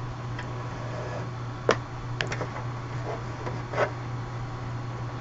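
Light handling noise of bracelet strings being worked into a square knot: a few soft rubs and small sharp taps, over a steady low hum.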